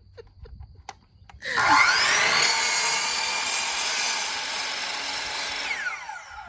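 Electric miter saw starting about a second and a half in with a rising whine, cutting through wood, then winding down with a falling whine near the end. A few light clicks come before it starts.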